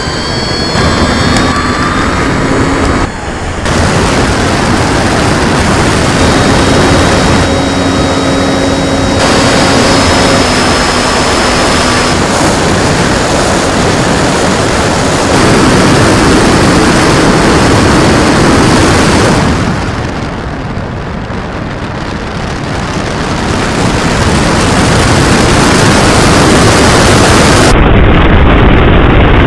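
Electric RC model Stuka's motor and propeller running at power, heard from an onboard camera with heavy wind rush over the microphone. A thin motor whine shifts in pitch during the first dozen seconds. The noise drops for a few seconds about two-thirds through, then builds again.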